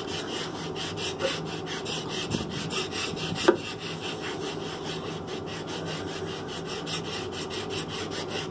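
Hand rasp scraping across a pine wood block in steady, repeated back-and-forth strokes, with one sharp knock about three and a half seconds in.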